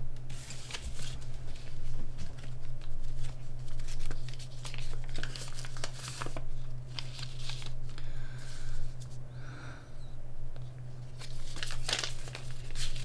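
Something crinkly being handled: irregular short rustles and crinkles, over a steady low hum.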